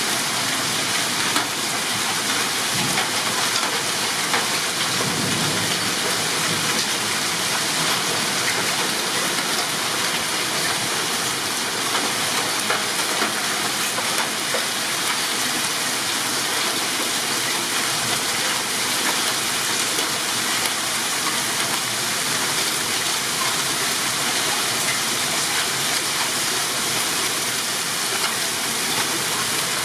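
Heavy rain pouring steadily during a hailstorm, with a low rumble of thunder about five seconds in.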